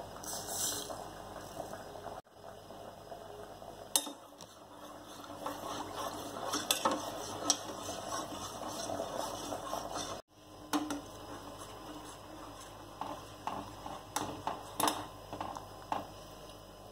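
Sugar poured into milk in a steel saucepan, then a metal spoon stirring the milk and clinking against the pan's sides in short sharp taps.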